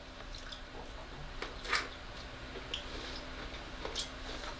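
Faint sounds of a person eating: chewing with a few small clicks and smacks, the clearest about a second and a half in, over a low steady hum.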